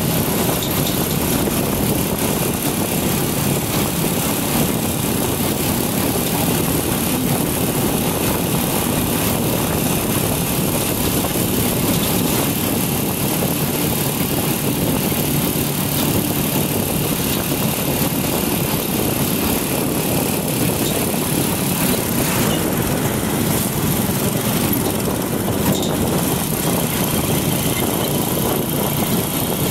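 Motorcycle engine running steadily while riding, heard from on the bike, with a constant rush of road and wind noise over it.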